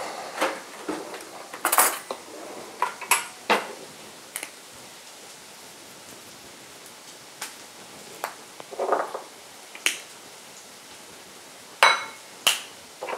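Scattered sharp clicks and clinks as a pepper grinder and salt shaker are handled over a small glass bowl of eggs and set down on a wooden worktop, about ten in all at irregular intervals, the loudest near the end.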